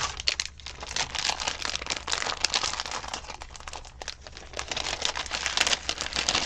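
Clear plastic cello bag crinkling and crackling in irregular bursts as hands open it and slide the contents out.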